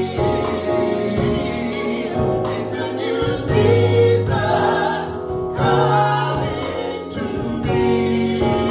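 Live gospel praise band: four vocalists singing the chorus in harmony over drum kit, keyboard and guitar, with a steady cymbal beat.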